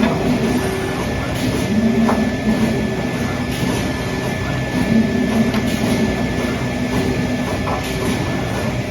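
Trumpf Trumatic 2010R CNC turret punch running under power: a steady mechanical hum with a constant high whine and a couple of faint clicks, without rapid punching strokes.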